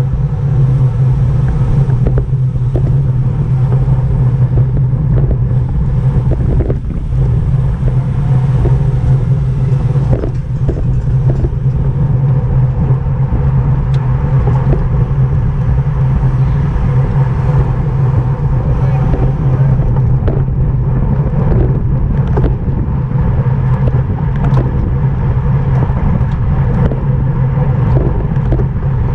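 Steady wind and road rumble rushing over the microphone of a camera carried on a racing bicycle at speed, with scattered short clicks.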